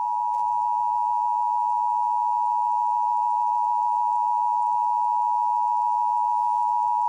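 Emergency Alert System attention signal: a steady two-tone electronic alarm tone held at a constant level, the signal that an emergency announcement follows.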